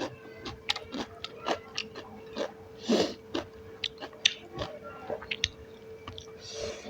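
A person chewing and eating with the mouth close to the microphone: irregular chewing clicks and smacks, several a second, over a faint steady hum.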